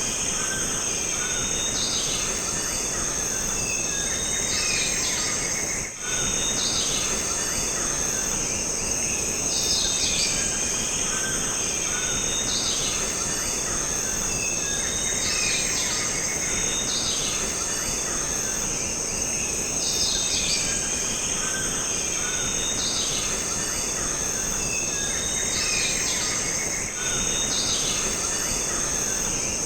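Jungle ambience: a steady, high insect drone with short bird calls repeating every couple of seconds and an occasional rapid trill.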